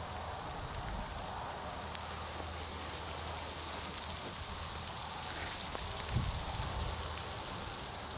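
Steady hiss of strong wind, with a low rumble of wind buffeting the microphone and a soft thump about six seconds in.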